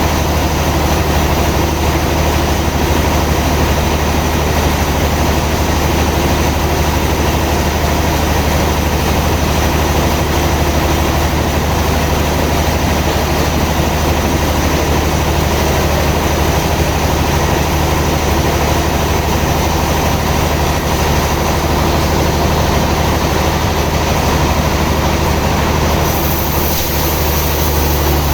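Sawmill machinery running steadily: a loud, constant motor drone with a strong low hum, shifting slightly near the end.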